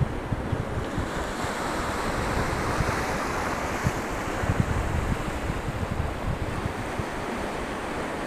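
Ocean surf: small waves breaking and washing in a steady hiss that swells for a couple of seconds about two seconds in. Wind buffets the microphone in low, gusty rumbles throughout.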